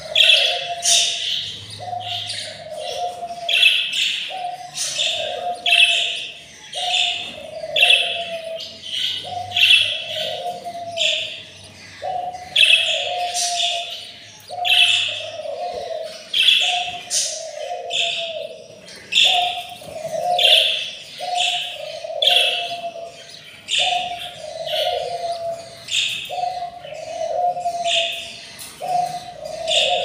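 Budgies chirping, one short call repeated over and over in a steady rhythm.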